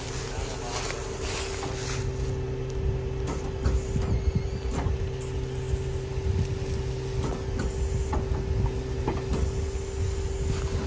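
Heavy vehicle machinery running: a steady whine over a low engine rumble, with scattered knocks and clanks, as the buried truck is pulled out.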